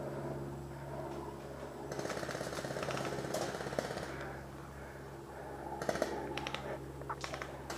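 Airsoft guns firing full-auto bursts, the rapid clatter of electric airsoft rifles: a long burst about two seconds in, then shorter bursts a little after the middle and near the end.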